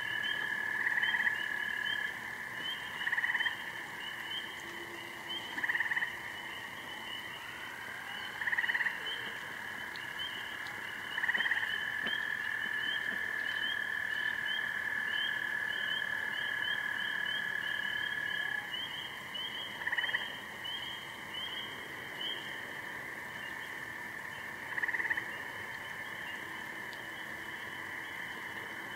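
A frog chorus from a swamp at night: many high, short, repeated peeps, a long steady trill below them that stops and starts again for several seconds at a time, and louder single calls standing out every few seconds.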